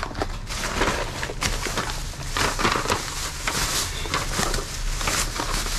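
Plastic trash bags and packaging rustling and crinkling as hands rummage through a dumpster, with irregular crackles and small knocks.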